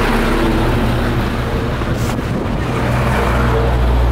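An engine running steadily at a low pitch, with wind noise on the microphone; the low engine hum grows louder about three seconds in.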